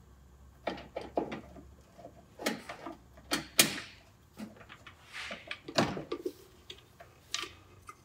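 Headlight unit being worked loose from its bucket and handled: irregular clicks, knocks and short scraping rattles, the loudest about three and a half seconds in and again near six seconds.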